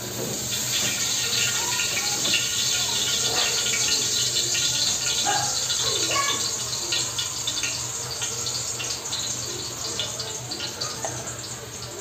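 Diced vegetables, ham and chicken sizzling in a hot nonstick wok with a steady crackling hiss, while a wooden spatula stirs and scrapes through them. The sizzle eases a little in the second half.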